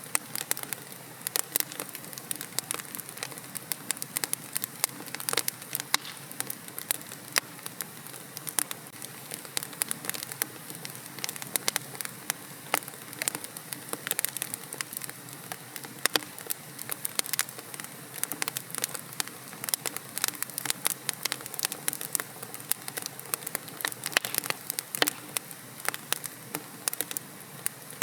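Wood fire crackling in a fireplace: dense, irregular sharp pops and snaps over a soft steady hiss of burning.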